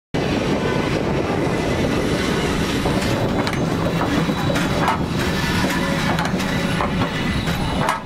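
A Changchun tram passing close by: steady running noise of its wheels on the rails, with a few sharp clacks from the wheels in the second half.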